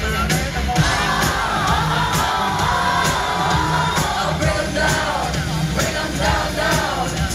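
Pop song played loud through a concert sound system at a sound check: a sung vocal with a long held note over a steady beat and bass.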